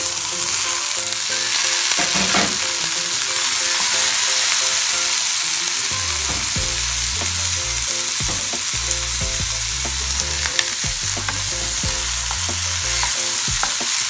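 Chopped tomato, garlic and onion sizzling in hot oil in a frying pan, stirred with a wooden spatula that scrapes and clicks against the pan. The sizzle is steady.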